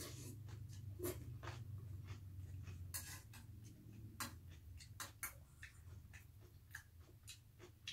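A metal spoon clicking and scraping against a stainless-steel bowl of rice in water, in irregular light clicks, over a low steady hum.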